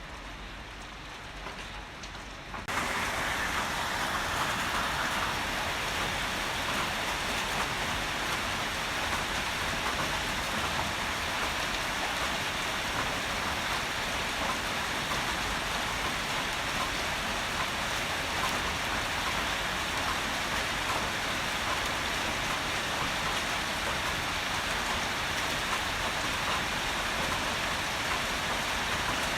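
Heavy rain falling in a steady hiss. It is softer for the first few seconds, then turns abruptly louder and fuller about three seconds in.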